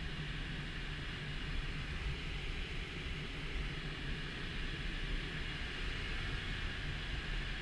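Steady rush of airflow around the cockpit and canopy of an ASK 13 glider in flight, with a low rumble underneath; there is no engine.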